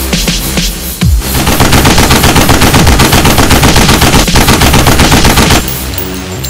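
Machine-gun fire sound effect: a rapid, loud burst of shots starting about a second in and running for about four and a half seconds before stopping abruptly, over an electronic music bed.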